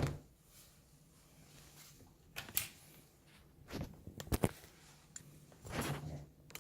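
Plastic clicks and knocks from handling a Dyson V10 cordless stick vacuum while an attachment is fitted: a sharp click at the start, then a few scattered knocks.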